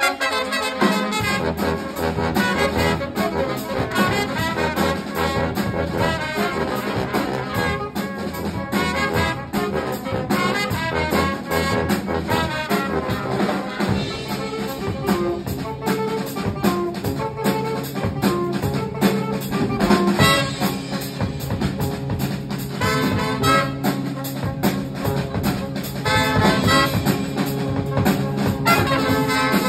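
Live brass band, with trumpets, trombone, saxophones and a sousaphone over a drum kit, playing a tune with a steady drum beat.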